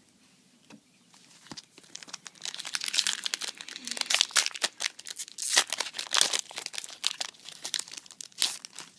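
Foil Yu-Gi-Oh booster pack being torn open and crinkled: a dense run of crisp crackles and rustles that starts about two seconds in.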